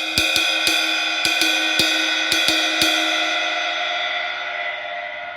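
K Zildjian Istanbul new-stamp cymbal of 1,990 grams struck about ten times in the first three seconds, then left ringing with a bright shimmering wash that slowly fades.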